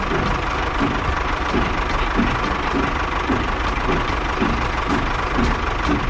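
A motor running steadily, with an even low knock about twice a second over a constant whirr.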